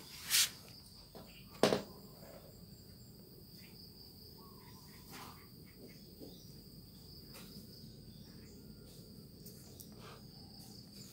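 Crickets chirring faintly and steadily in the background, a continuous high-pitched trill. Two short, sharp knocks stand out in the first two seconds.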